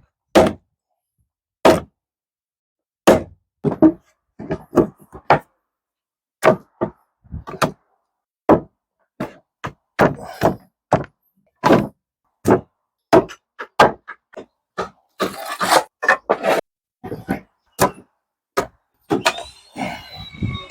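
Hammer blows on timber during the assembly of a wooden frame: a long series of sharp single knocks, irregularly spaced, with a short stretch of scraping noise about three quarters through.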